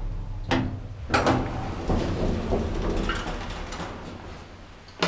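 Automatic sliding doors of a 1984 Schindler traction elevator opening once the car has stopped: clicks and a clunk from the door mechanism about a second in, then the doors running open and the sound fading, with a sharp click near the end.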